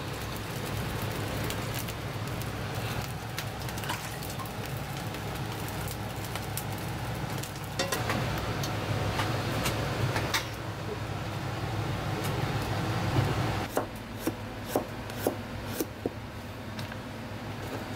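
A gas burner running steadily under an aluminium pot of broth and dark sauce on the heat. A few seconds before the end, the hum drops away and a knife slices ginger on a cutting board: about six sharp knocks.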